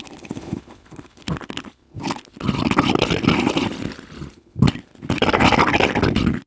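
Rough, raspy animal-like creature sound effects: faint scraping at first, then two long growling bursts with a short sharp one between, cut off abruptly at the end.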